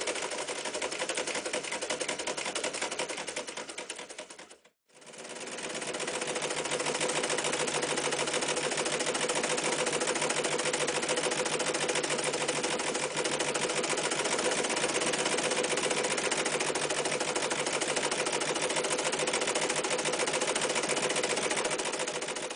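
Vintage electric sewing machine running at speed, its needle stitching through thick cotton webbing, in a rapid, steady mechanical chatter. It stops briefly about five seconds in, then runs steadily again while stitching through a 3.5 mm thick leather belt.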